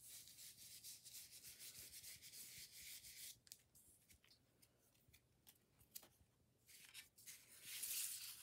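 Soft rubbing and scrubbing on paper as a sponge works paint through a plastic stencil, for about the first three seconds. Then come a few light taps, and near the end a louder rustle as the sheet of paper slides and is lifted off the table.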